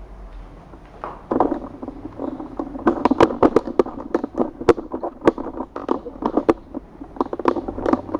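Handling noise from the tripod and camera: a rapid, irregular clatter of clicks and knocks that starts about a second in and stops abruptly at the end.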